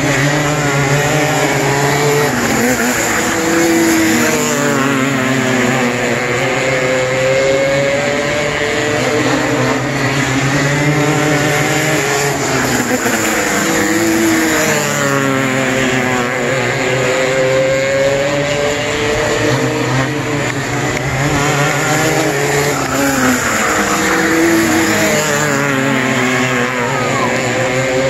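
Several winged micro sprint cars racing on a dirt oval, their small high-revving engines screaming at full throttle. The engine pitch rises and falls again and again as the cars come off the turns, down the straights and past the stands, lap after lap.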